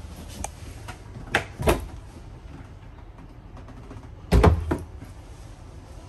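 A door being handled: two sharp knocks about a second and a half in, then a heavier thud with a brief rattle after it about four and a half seconds in.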